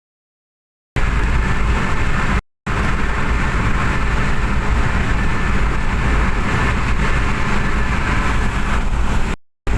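Engine running steadily and loud, starting about a second in, with the sound cutting out briefly about two and a half seconds in and again near the end.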